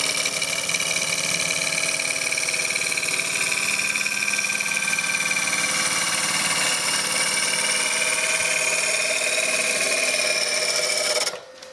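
A gouge cutting into a spinning ash blank on a wood lathe as it makes a pass along the cylinder. It gives a steady, continuous cutting noise with a high ringing tone, and cuts off abruptly near the end.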